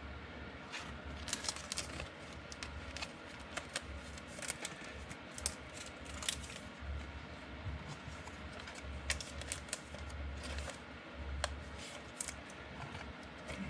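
Trading cards being handled and flipped through: irregular light clicks and flicks of card stock, with a low hum underneath.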